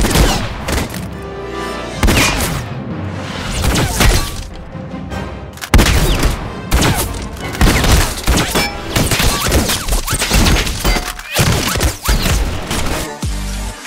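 Sci-fi sound effects: a rapid run of laser blaster shots, sharp impacts, crashes and booms layered over music. Near the end the effects give way to a steady pulsing electronic bass beat.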